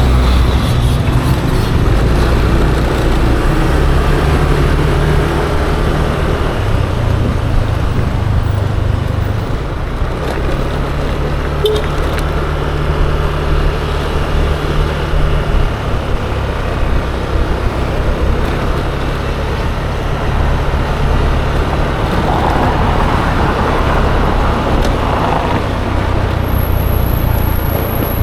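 Yamaha Aerox 155 scooter's single-cylinder engine running under way, its note shifting up and down every few seconds, over steady road and traffic noise.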